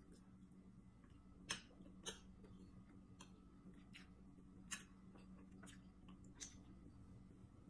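Metal spoon and fork clicking against a plate as rice and fish are scooped up: a few sharp, separate clinks spread through the quiet, over a faint steady hum.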